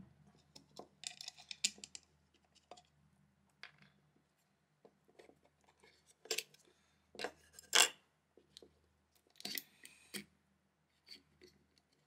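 Fingers handling a Philips Hue motion sensor's plastic housing as its back cover is prised off: scattered small clicks, scrapes and rubs of plastic, with a few sharper clicks, the loudest about eight seconds in.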